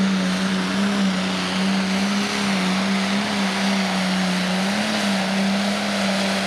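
Pro Stock pulling tractor's turbocharged diesel engine running flat out under full load while it drags the pulling sled. It makes a loud, steady drone whose pitch wavers only slightly.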